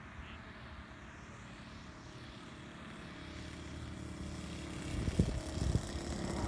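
The .90 Magnum four-stroke glow engine of a Great Planes Little Toni RC plane running at low throttle, growing steadily louder as the plane comes in low over the field. A few sharp thumps sound near the end.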